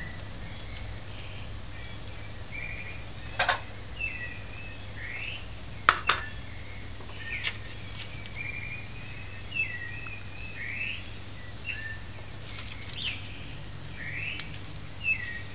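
Kitchen knife and utensils clicking and knocking on a countertop and plate while garlic is peeled and trimmed, with two sharp knocks a few seconds apart as the loudest sounds and smaller clicks later on. Small birds chirp repeatedly in the background over a low steady hum.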